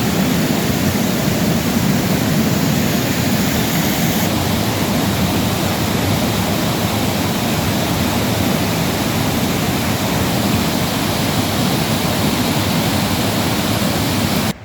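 Fast-flowing stream water rushing and cascading into the fairy pools close to the microphone, a loud, steady wash of water noise. It cuts off suddenly at the end.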